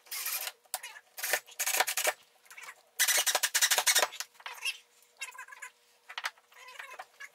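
Cordless drill driving lag bolts through a metal TV wall-mount bracket into the wall, in several short bursts with pauses between; the longest run, about three seconds in, carries a fast, even rattle.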